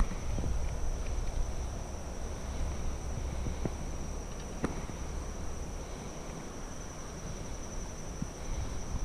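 Steady high-pitched drone of insects, with a low rumble underneath and a couple of faint clicks about four to five seconds in.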